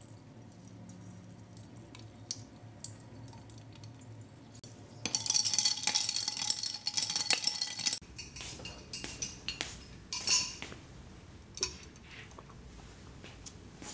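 Milk pouring faintly into a glass mug of iced tea. About five seconds in, ice cubes clink and rattle against the glass for about three seconds as the drink is stirred with a straw. Near the middle come a few light knocks as the glass is set down on a coaster on a wooden table.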